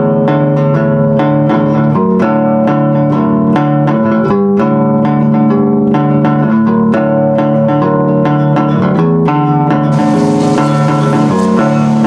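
Background music of plucked notes played on a cigar box bass guitar, a run of single notes with a slow strummed feel. A steady hiss comes in under it about ten seconds in.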